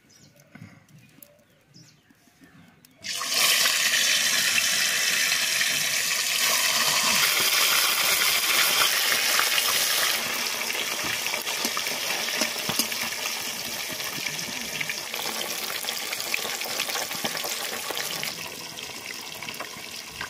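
Fish pieces frying in hot oil in an iron kadai: a loud sizzle starts suddenly about three seconds in and goes on steadily, easing a little after about ten seconds.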